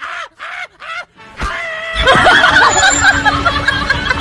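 Laughter sound track: a quick run of short 'ha' laughs, about four a second. Then, from about a second and a half in, a loud, dense burst of many voices laughing and shrieking together.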